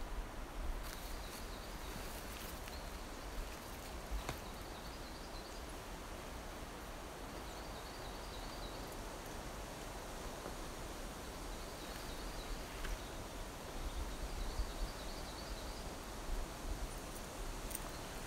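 Quiet forest ambience: a small songbird repeats a short, high warbling phrase every few seconds over a steady background hiss. There are a few soft snaps of footsteps and twigs on the mossy ground.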